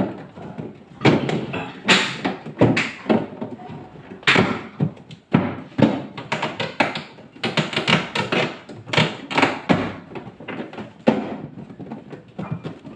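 A run of irregular knocks, taps and thuds, with no steady rhythm.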